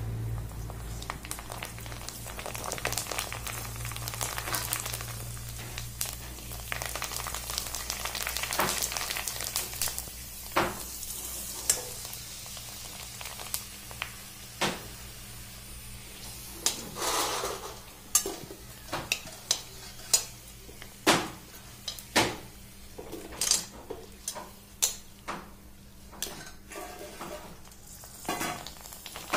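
Puri dough discs deep-frying in hot oil in an aluminium wok, sizzling steadily. Many sharp clicks and taps come through over the sizzle, more often in the second half.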